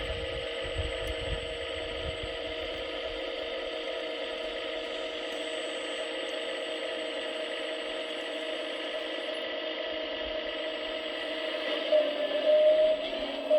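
Hydraulic pump of a 1/14-scale RC excavator running with a steady whine; near the end it gets louder in uneven surges and its tone shifts.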